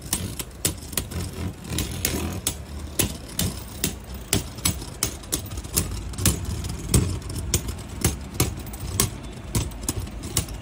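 Two Beyblade Burst spinning tops, Valtryek and Fafnir, whirring in a plastic stadium and clashing. A steady low spinning hum runs under repeated sharp clacks, several a second at irregular intervals.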